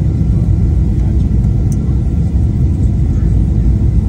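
Steady, deep rumble of a jet airliner's engines and airflow heard from inside the passenger cabin during the descent on final approach.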